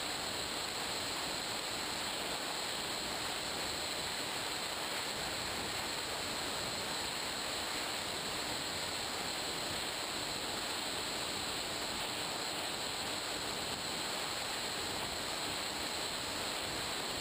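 Steady rush of air and electric motor and propeller noise from an FPV Raptor RC plane in flight, picked up by the onboard GoPro, with a steady high whine over it.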